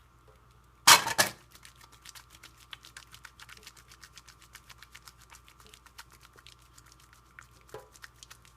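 Wet hands working up a lather with a bar of glycerin soap: a loud, brief rush about a second in, then a steady run of soft, quick wet clicks and squishes, several a second.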